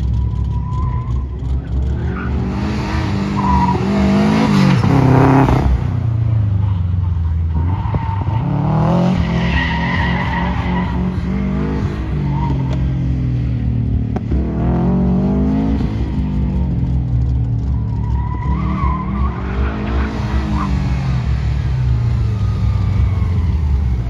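Third-generation Pontiac Firebird driven hard through an autocross course: the engine revs climb and drop several times, with the tires squealing in the corners.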